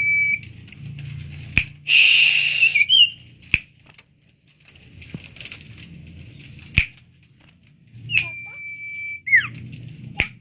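Common iora (cipoh) singing: long, steady whistled notes near the start and again about 8 seconds in, the second ending in a falling slur, with a loud harsh chattering burst about 2 seconds in. Sharp single clicks sound every few seconds.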